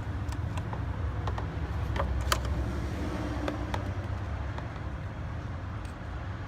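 Steady low rumble of a vehicle engine running, with scattered light clicks and ticks of hand tools, such as pliers, working at a plastic heater hose connector.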